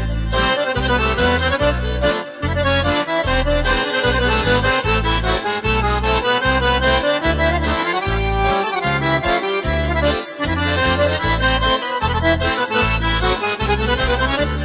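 Instrumental Gypsy polka music: an accordion plays a quick, busy melody over a steady pulsing bass beat.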